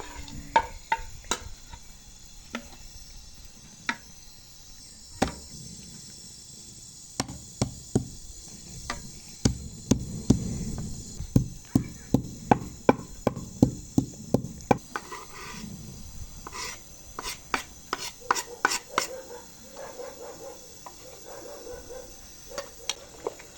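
Knife chopping on a cutting board: scattered single knocks, then a quicker run of steady strokes in the middle, then slower, irregular strokes again.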